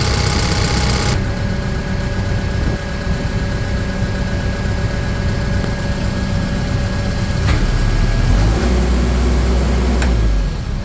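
Case 580N EP backhoe's diesel engine running steadily. The sound turns duller about a second in, and from about eight seconds a deeper, heavier rumble builds until it drops off near the end. Two sharp clicks come near the middle and about ten seconds in.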